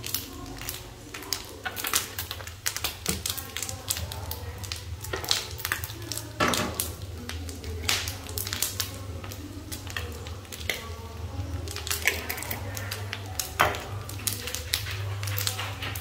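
Small dried fish frying in hot oil in a pan, sizzling with frequent irregular sharp pops and crackles of spattering oil. A steady low hum runs underneath.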